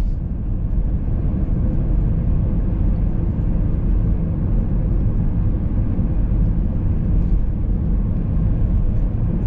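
Steady low rumble of road and engine noise from a car being driven along a main road, heard from inside the car, unchanging throughout.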